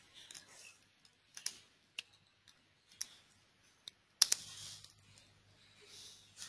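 Computer mouse clicking, several quiet single clicks about a second apart, with a louder double click about four seconds in.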